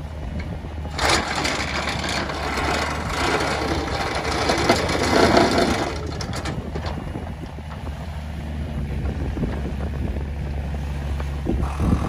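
Mini excavator's diesel engine running steadily while its hydraulic vibratory pile driver works a wooden piling into the ground, a rough rattling buzz that is loudest from about a second in to halfway, then eases off to the engine alone.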